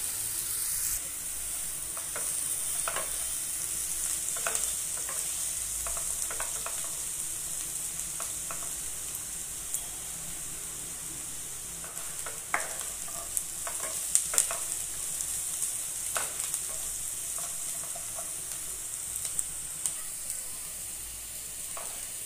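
Chopped onions sizzling in hot oil in a nonstick kadhai, with a spatula scraping and knocking against the pan as they are stirred. A few louder knocks come about halfway through.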